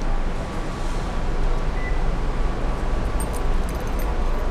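Steady low rumble of vehicle noise, with no other event standing out.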